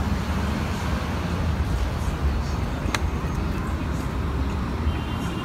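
Road traffic on a busy multi-lane boulevard: a steady low rumble of passing cars, with a single sharp click about three seconds in.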